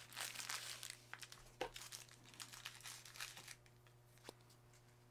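Faint crinkling and rustling of packaging being handled as a small cloth jewelry pouch and its paper insert are opened, with a couple of light clicks. The rustling dies away after about three and a half seconds.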